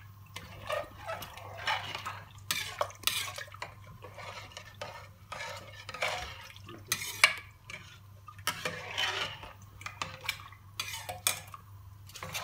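Metal spoon stirring rice and lentils in water in a metal pot, clinking and scraping against the sides in irregular strokes.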